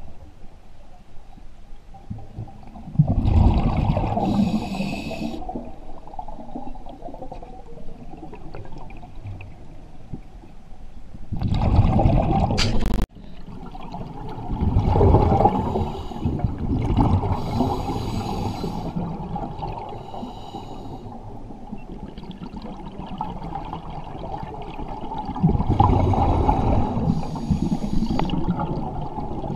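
Scuba diver breathing through a regulator underwater: hissing inhalations and bubbling, rumbling exhalations every several seconds, over a steady underwater hum.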